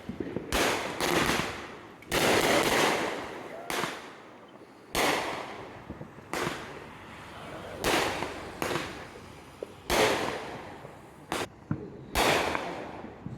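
Fireworks exploding one after another: about a dozen sharp bangs, some in quick pairs, each trailing off in a long echoing decay.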